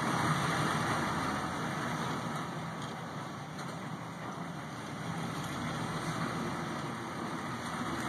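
Ex-military Chevrolet M1008 pickup's 6.2-litre V8 diesel running as the truck pulls away and comes back, the sound dropping somewhat in the middle and growing again toward the end.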